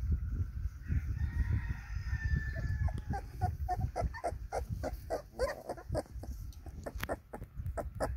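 A rooster crows once, a long call held for about two seconds, followed by a rapid run of short high calls, about four a second, over a low rumble on the microphone.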